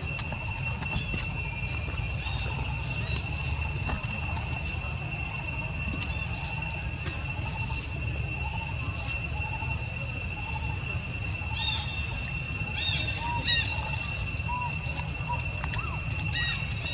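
Steady, high-pitched insect drone of cicadas or crickets over a low outdoor rumble, with a few short high chirping calls in the later part.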